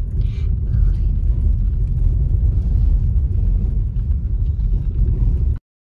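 Car driving along an unpaved dirt road: a steady low rumble of engine and tyres, which cuts off suddenly near the end.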